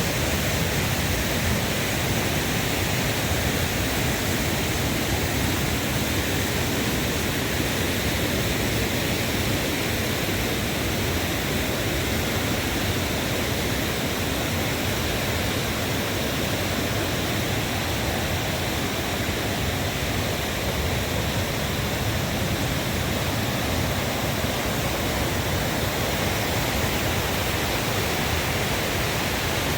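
River swollen by heavy rain rushing hard over stones: a steady, unbroken rush of water.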